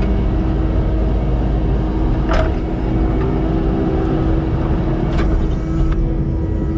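Kubota skid steer running steadily while driving a Harley power rake through topsoil, with a steady hum over the engine noise. Two sharp clicks come about a third and three quarters of the way through.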